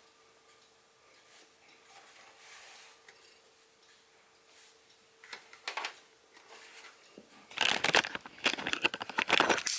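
Vornado VH2 fan heater running on its low setting with a faint steady hum that stops about five seconds in. In the last couple of seconds, loud clattering and rustling as the heater is handled and turned around.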